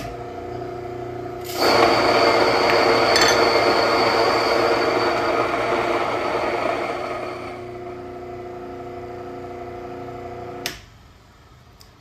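Mockmill electric stone grain mill switched on and running, then grinding einkorn wheat berries on its coarsest setting. The grinding is much louder and denser from about a second and a half in, eases off as the grain runs through, and the motor runs on empty until it cuts off sharply near the end.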